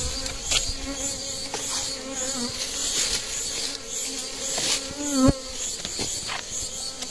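Honeybees ('italiana', Africanized honeybees) buzzing steadily around their broken-open comb in a hollow stump, stirred up by the honey harvest. One bee flies close, a wavering louder hum about five seconds in.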